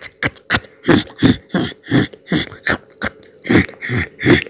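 Cartoon sound effect of a mouse gnawing through a rope: short chewing bursts repeating about three times a second, over a faint steady hum.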